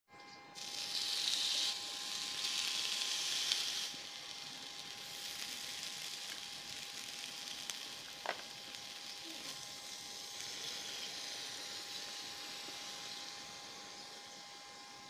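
Sizzling on a hot cast-iron sizzler platter. It is loudest in the first few seconds, then settles to a steadier sizzle that slowly fades, with a single click about eight seconds in.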